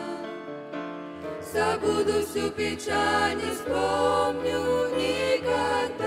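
Mixed vocal group of young women and men singing a worship song in Russian in harmony, with steady accompaniment underneath. After a quieter held chord, the voices come in louder about a second and a half in.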